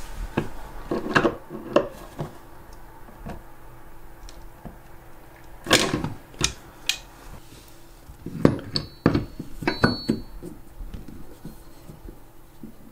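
Irregular metal clinks and knocks of a tool on a bathroom sink faucet as its loosened cartridge is tightened down to try to stop a drip, with a burst of clatter about six seconds in and another near nine to ten seconds.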